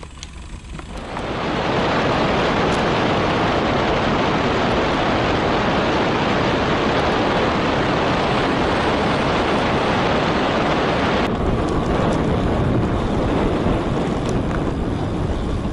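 Wind rushing over an action camera's microphone on a moving road bike, with tyre hum underneath. It starts about a second in, stays loud and even, and changes tone abruptly about eleven seconds in.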